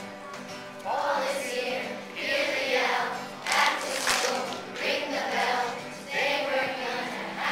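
Children's choir singing a song together to two strummed acoustic guitars; the voices come in about a second in, after a short guitar lead-in.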